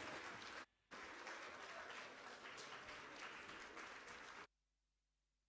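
Audience applauding, a dense patter of many hands, broken by a brief gap just under a second in and cut off abruptly about four and a half seconds in.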